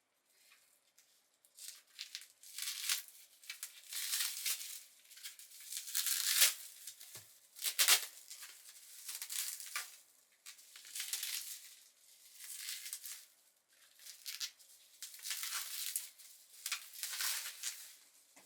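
Packaging of an in-ear earphone box being crinkled and torn open in a series of short rustling bursts, the loudest two around the middle.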